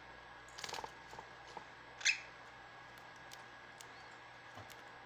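Cockatiel giving a single short, high chirp about two seconds in, with a few light clicks and taps in the first second.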